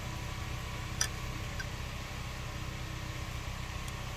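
A steady low machine hum, with one short click about a second in.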